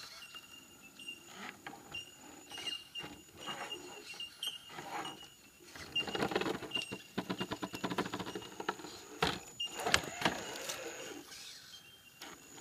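Axial SCX10 RC rock crawler with a Novak Ballistic 18.5-turn brushless motor, whining in short bursts as it picks its way over boulders, with tyres and chassis scraping and knocking on the rock. There is a busy clatter of rapid ticks about halfway through.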